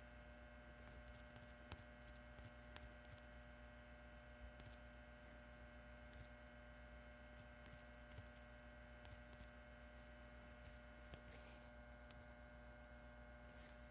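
Near silence with a steady electrical hum, broken by about fifteen faint clicks in irregular runs as letters are typed on a phone's touchscreen keyboard.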